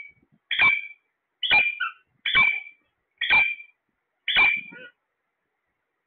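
Alexandrine parakeet giving five loud, harsh screeching calls, about one a second.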